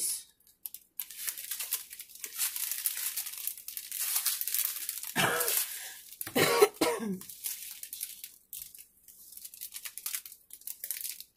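Small plastic bags of diamond painting drills crinkling and rustling as they are handled and laid out. A person coughs twice about halfway through.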